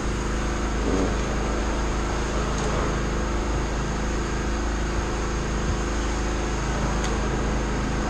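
Steady mechanical hum of a running machine or fan, with a few faint small ticks.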